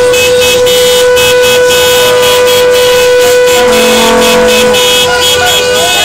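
A siren sounding one loud, steady tone, held without a break. A shorter, lower horn note joins it for about a second, a little past the middle.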